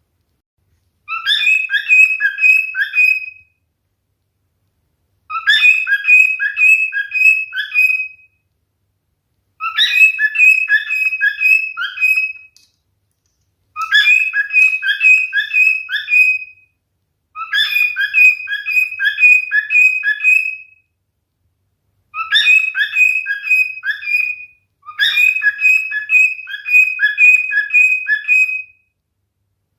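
Male cockatiel whistling the same short song phrase over and over: seven bursts of five or six quick chirping notes each, a second or so of silence between them.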